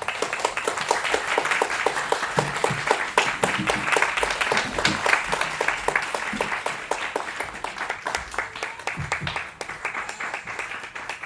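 Audience applauding: many hands clapping in a dense, irregular patter that starts just before and thins a little after about eight seconds.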